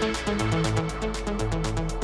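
Electronic background music with a steady, fast beat and a repeating bass line.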